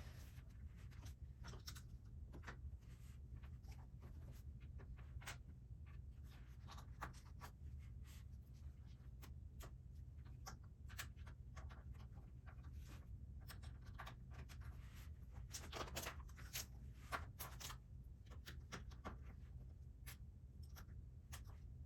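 Plastic Lego bricks being handled and pressed together: scattered small clicks and taps over a low steady hum.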